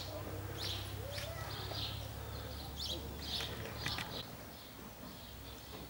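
Small birds chirping outdoors, many short high notes repeated throughout, over a low steady hum that fades about four seconds in.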